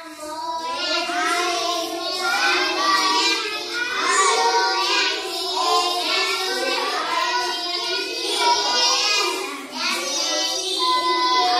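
Children singing, with a brief dip about ten seconds in.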